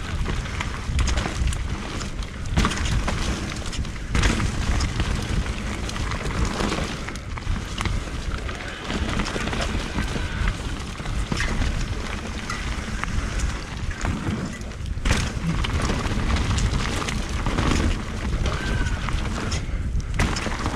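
Wind buffeting the camera microphone and tyres rolling over a dirt singletrack as a Merida e160 electric mountain bike descends, with irregular knocks and rattles from the bike over rough ground.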